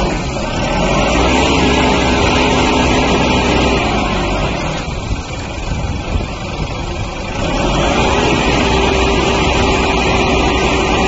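Engine of a self-loading concrete mixer truck running steadily, easing off for a few seconds midway and then picking up again.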